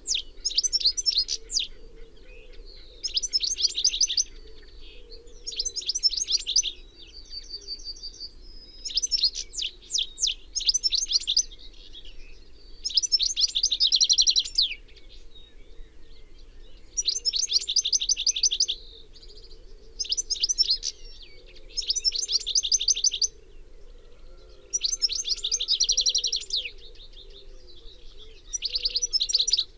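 European goldfinch singing: phrases of rapid, high twittering and trills, each a second or two long, repeated every few seconds with short pauses between.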